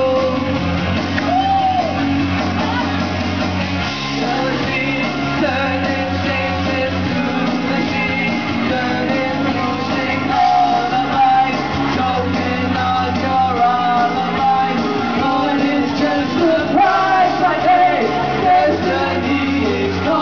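Karaoke singing into a microphone over an amplified backing track, with the bass line changing every couple of seconds.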